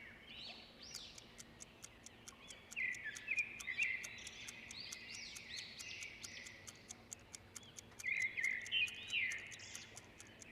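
A clock ticking rapidly, about four ticks a second, over birds chirping, with clusters of louder chirps twice.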